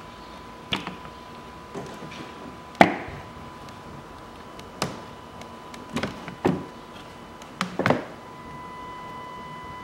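Plastic engine cover of an Audi Q7 3.0 TDI being pulled up off its mounts: a string of sharp plastic knocks and pops, about eight in all, the loudest about three seconds in.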